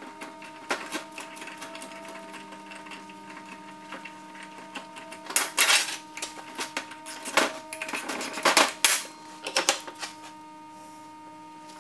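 Metal parts clicking and clattering as a brake caliper bracket is unbolted, turned around and refitted on a BMW E36 trailing arm: light ticks throughout, with several louder rattles in the second half.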